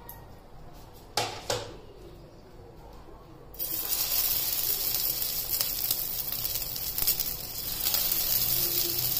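Potato patties (aloo tikki) laid into hot oil on a tawa start sizzling suddenly a little over a third of the way in, and the shallow-frying sizzle runs on steadily as another patty is set down. Before it, a couple of light knocks.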